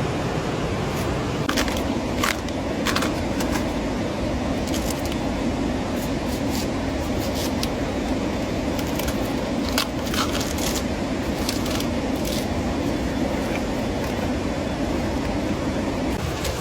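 Steady rush of water in heavy rain, with scattered light clicks and taps.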